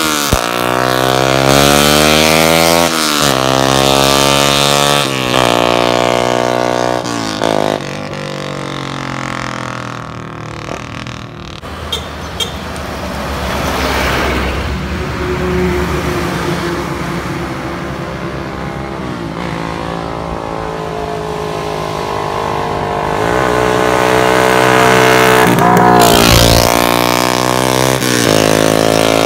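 Single-cylinder Suzuki Raider 150 Fi motorcycle on an open Vmax elbow exhaust, accelerating hard, its pitch climbing and dropping back with each gear shift as it pulls away, then fading. Later the engine sound grows loud again with more rising revs near the end.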